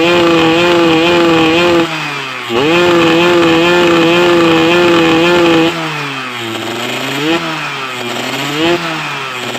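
1999 Yamaha F1ZR's 110 cc single-cylinder two-stroke engine revved and held at high revs. The revs dip briefly about two seconds in, then drop back toward idle about six seconds in, with two quick throttle blips near the end.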